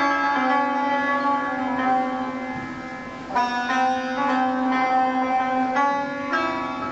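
Santur, the Persian hammered dulcimer, being played: struck notes ring on and overlap, fade a little, then a fresh run of strikes comes in about halfway through.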